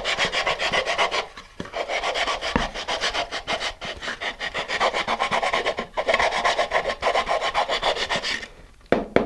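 Sandpaper wrapped on a wooden dowel scraping rapidly back and forth inside a cardboard model-rocket engine mount tube, grinding away the leftover glued paper of the engine block. The strokes pause briefly twice, then stop, followed by a short knock near the end.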